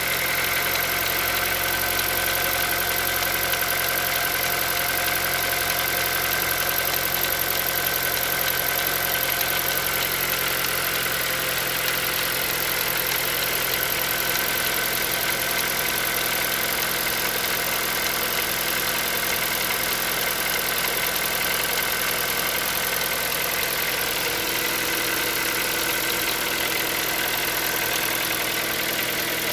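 Hyundai Solaris 1.6-litre four-cylinder petrol engine idling cold with a steady, even knocking: a cold-start engine knock whose cause the owner does not know.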